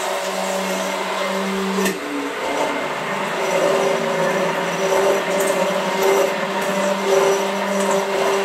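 Hand-held stick blender motor running under load in a thick, still-lumpy cashew and silken tofu mixture. Its pitch shifts about two seconds in and then wavers as the blades work through the heavy mix.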